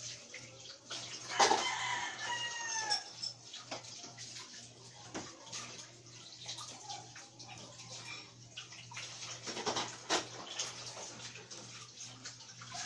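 Laptop keyboard keys clicking irregularly as someone types. About a second and a half in, a rooster crows once for roughly two seconds, the loudest sound here, its call falling in pitch at the end. A steady low hum runs underneath.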